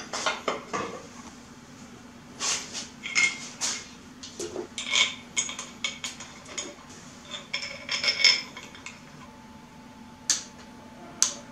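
Metal clinks and taps as an aluminium water pump and its bolts are handled and set against a Mazda 1.8L engine block. Near the end come two sharp single clicks as a socket wrench is put to the pump bolts.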